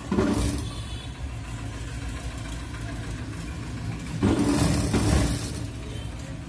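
Sewing machine stitching in two short runs, a brief one at the start and a longer one from about four seconds in, over a steady low motor hum.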